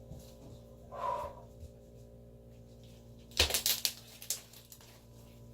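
Sticky homemade slime being pulled and squished by hand, giving a quick run of sharp crackling pops about three and a half seconds in.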